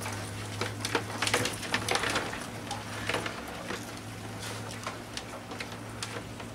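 Live land crabs' legs and claws clicking and scraping on a plastic tub as a hand reaches in among them and lifts one out. The clicks are irregular and busiest a second or two in, over a steady low hum.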